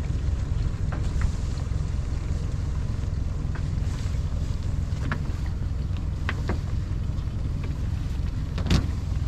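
Crab pot line being hauled up by hand over the side of a boat, with light knocks and clicks from the line and gear, and a sharper knock near the end. A steady low rumble of wind on the microphone lies under it.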